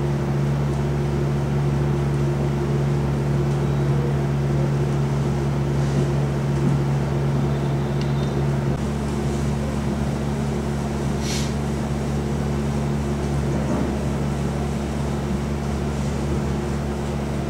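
Steady low hum with several held low tones and a low rumble underneath, unchanging throughout, with one brief high hiss about eleven seconds in.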